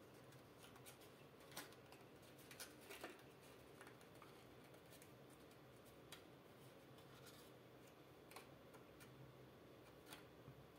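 Faint, scattered crinkles and taps of origami paper being folded and creased by hand, over near-silent room tone.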